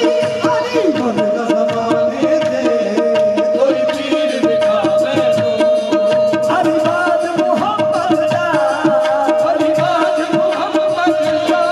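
Live qawwali: harmoniums hold a steady drone while tabla and hand-clapping keep a rhythm, and male voices sing, with the sung melodic runs growing more prominent about halfway through.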